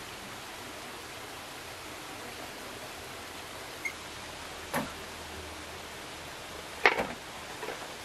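Steady hiss with two sharp knocks about five and seven seconds in, the second the loudest, and a few light taps after it: a bamboo pole knocking against a bamboo frame as it is handled.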